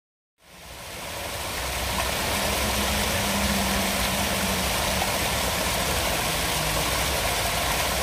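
Fountain jets splashing into a shallow stone basin: a steady rush of falling water that fades in just after the start.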